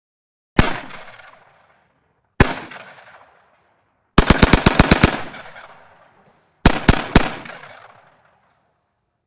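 Machine gun sound effect. A single shot comes about half a second in and another near two and a half seconds. Then a fast burst of about ten rounds lasts roughly a second, followed by a short burst of three shots. Each shot trails off in a long echoing decay.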